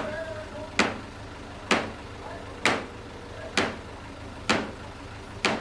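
Hammer blows struck at an even pace, about one a second, six in all, each ringing out briefly. A vehicle engine idles steadily underneath.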